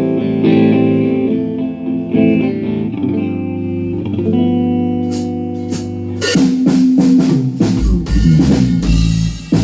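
A band starts a song: guitar chords ring alone at first, then the drums come in about six seconds in and the bass joins a second or so later.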